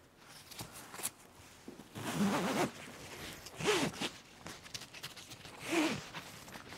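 The wide belt-style shoulder strap of a C.E Coated Bag is pulled through its adjuster buckle to change its length. There are three short pulls, about two seconds, three and a half seconds and six seconds in.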